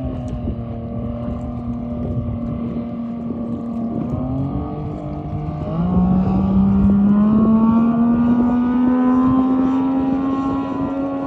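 70 hp Johnson two-stroke outboard on a small race boat running at speed, a high engine whine that steps up in pitch about four and six seconds in and grows louder from about six seconds, then keeps climbing slowly.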